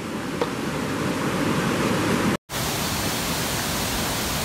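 Ocean surf rushing and breaking. About halfway through, the sound cuts out for an instant and gives way to the steady rush of a waterfall pouring into a pool.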